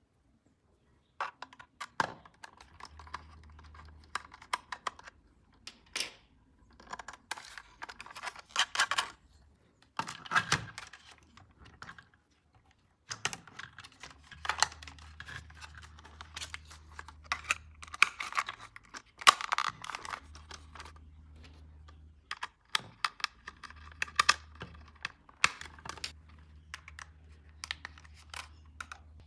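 Irregular clicks, taps and rustles from hands handling toy packaging and plastic parts during an unboxing. A low hum comes and goes in stretches of a few seconds.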